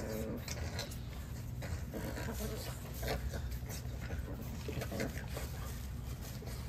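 French bulldog puppies play-fighting with an adult French bulldog: a few short growls and grunts, about three in all, over scuffling and rustling on a pad.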